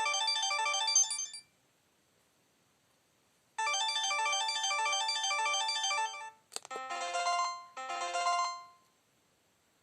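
Preloaded polyphonic ringtones playing from an LG VI125 mobile phone's speaker. A fast, repeating electronic melody ends about a second in and plays again after a two-second pause. Then a click, and a different tone plays two short phrases.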